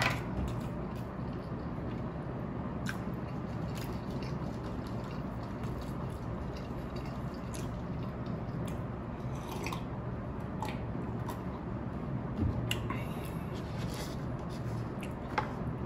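Close-up eating sounds: chewing with small wet clicks over a steady low hum. Partway through comes a sip from a plastic cup of iced drink, and near the end a wooden spoon knocks in a paper noodle cup.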